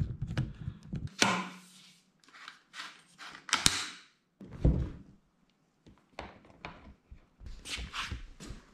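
Handling noise as a metal oar shaft is fitted into a plastic oarlock on an inflatable boat: a string of clicks and rustling with a few knocks. The sharpest knock comes a little under four seconds in and a dull thunk just after it.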